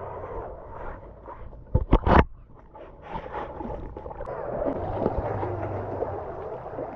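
Radio-controlled off-road truck driving through a shallow flooded ditch, its wheels churning and splashing water. A few loud knocks come close together about two seconds in, and the splashing grows louder near the end.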